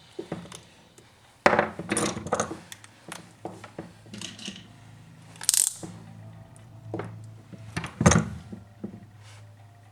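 Hand tools and small metal parts clinking and knocking while working on a petrol chainsaw: a string of sharp knocks, loudest about a second and a half in and again near eight seconds, with a short hiss about five and a half seconds in.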